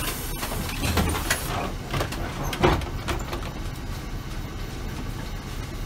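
Route bus running, heard from inside the passenger cabin: a steady low engine and road rumble with light rattles, and one louder knock just under three seconds in.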